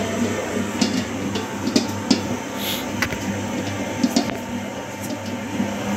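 Butler PM20 20-litre planetary mixer running: a steady motor and gearbox hum with scattered clicks and knocks from the turning attachment.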